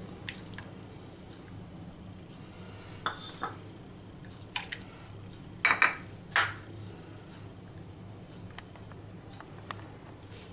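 A few short taps and clinks of small containers against a glass mixing bowl as marinade ingredients are tipped onto raw chicken pieces, the loudest two about six seconds in, over a faint steady low hum.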